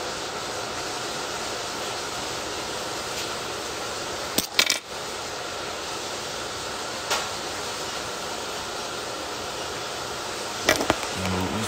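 Steady hiss of background noise, broken by a quick cluster of sharp clicks about four and a half seconds in and single clicks near seven and near eleven seconds, like small hard objects being handled.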